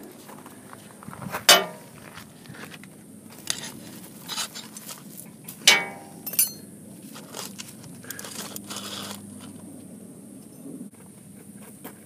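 Crunching footsteps on shell gravel with scattered sharp knocks and clinks, the two loudest about a second and a half in and just before six seconds in, then quieter.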